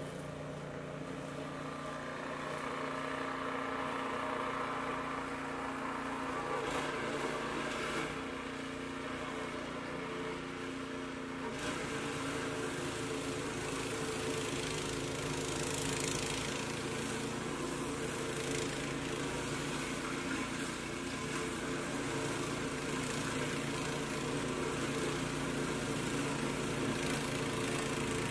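Gasoline snowblower engine running steadily. About twelve seconds in, a rushing hiss joins it as the machine starts throwing snow.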